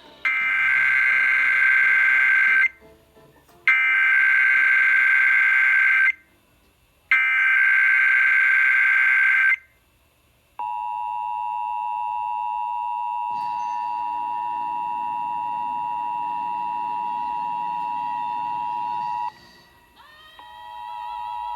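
Emergency Alert System test tones as broadcast. First come three bursts of SAME header data tones, each about two and a half seconds long and about a second apart. Then the EAS two-tone attention signal sounds as a steady dual tone for about nine seconds, breaks off, and starts again shortly before the end.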